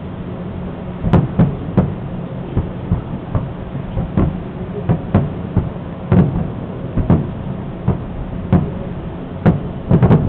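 Aerial firework shells bursting in a rapid, irregular series of booms, more than a dozen in ten seconds, the loudest pair near the end, over a steady low hum.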